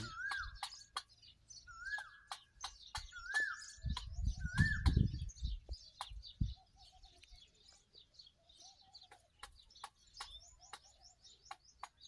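A peacock pecking millet from a metal bowl, its beak clicking sharply against the metal many times at an uneven pace, while small birds chirp throughout. A short whistled bird note that rises then falls repeats four times in the first five seconds, and there is a low rumble from about four to six seconds in.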